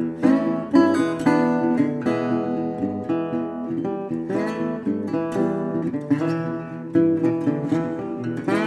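Intro music: acoustic guitar picked and strummed, with repeated plucked chords.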